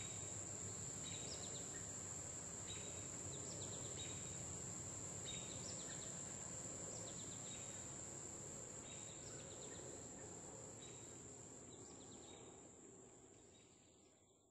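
Faint creekside ambience: a steady high insect drone with a short chirping call that repeats about every one and a half seconds. It fades out near the end.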